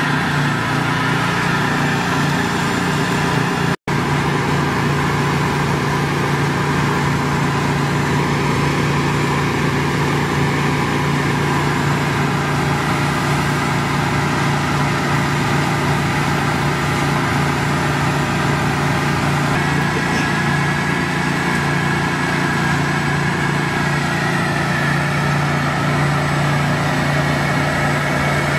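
Engine-driven hot-water pressure washer rig running steadily with a constant hum. The sound cuts out for an instant about four seconds in.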